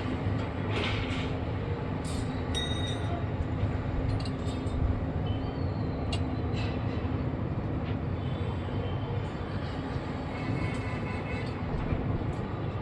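Heavy construction-machine engine running steadily at a low rumble, with scattered metallic clicks and a few short hisses over it.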